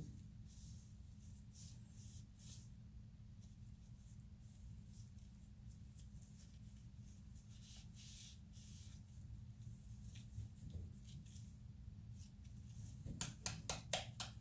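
Faint scratching and handling of small diesel injector parts over a steady low hum. Near the end comes a quick run of taps, about five a second, as an injector part is beaten against a hand to knock debris out of its holes.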